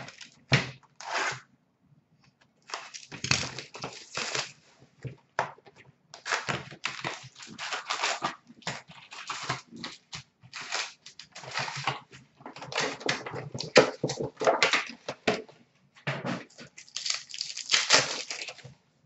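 Wrappers of Upper Deck hockey card packs being torn open and crinkled by hand, in irregular crackling bursts with short pauses between them.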